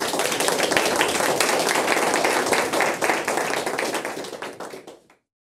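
Audience applauding, many hands clapping at once, fading out and stopping shortly before the end.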